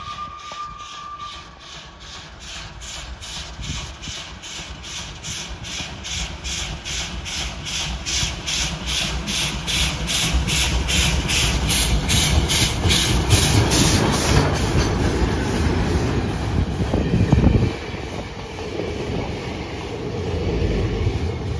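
Steam locomotive approaching and passing at speed, its exhaust chuffing in a quick, even beat about three times a second. The rumble of the engine and wheels builds as it draws level, falls off suddenly after the locomotive goes by, and the coaches follow with the clickety-clack of wheels over rail joints.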